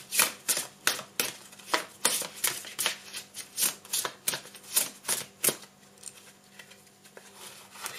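A deck of cards being shuffled in the hands: a quick run of sharp card clicks, about three a second, that thins out about five and a half seconds in.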